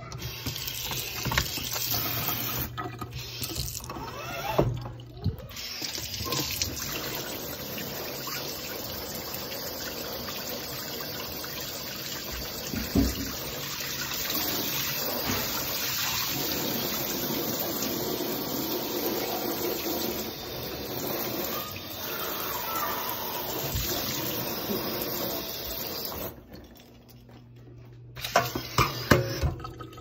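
Water running and spraying from the kitchen faucet, rinsing a dishwasher's mesh filter and the dishwasher's sump. The flow is steady with two short breaks early on, and stops near the end. A few sharp knocks of handling follow.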